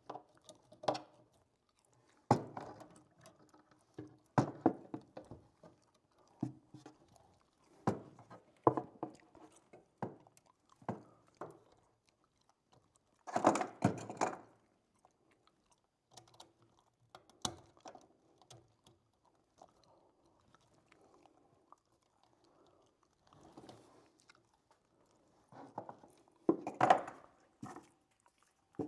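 Hand work on electrical wiring: scattered clicks, crunches and rustles from handling wire and tools, with the loudest bursts about halfway through and near the end.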